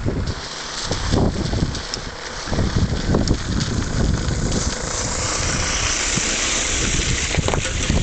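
Wind buffeting the microphone in gusts, over the steady drone of a Kolb Mark III ultralight's engine on landing approach, which grows louder about five seconds in as the aircraft comes closer.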